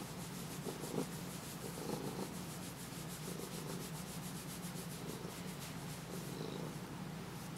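A hand rubbing a Siamese cat's fur in quick strokes, over the cat's steady purring.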